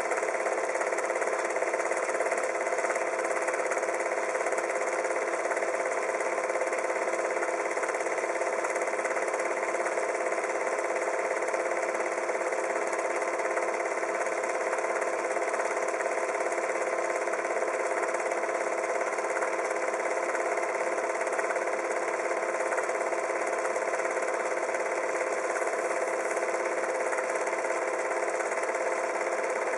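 Steady mechanical whirr: an even hum with a hiss over it that does not change.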